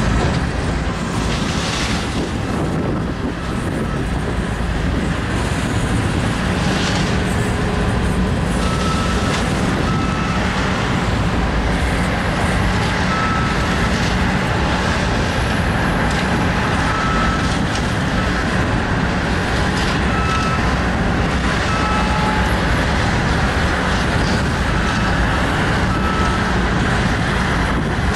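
Freight train of coal hopper cars rolling by with a steady rumble of wheels on rail, and short faint squeals now and then.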